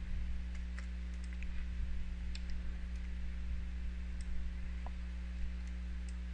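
A few faint, scattered computer-mouse clicks over a steady low electrical hum.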